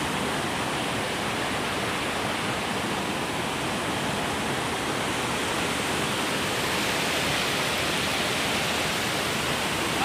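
White water of a rocky stream rushing over boulders below a waterfall: a steady, even rush.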